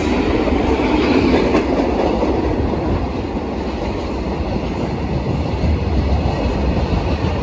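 Freight train of loaded box wagons passing close by, its wheels running on the rails in a steady rolling noise.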